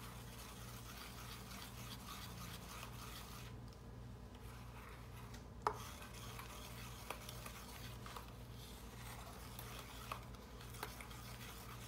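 Faint scraping and stirring of thick, pudding-like homemade gesso in a stainless steel mixing bowl, with one sharp click of the utensil against the bowl a little past halfway and a few lighter ticks after it. A low hum runs underneath.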